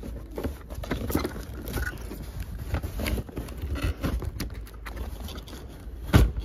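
Cardboard box flaps being handled and pulled open: rustling, scraping and crackling of cardboard with small knocks, and a louder thump near the end.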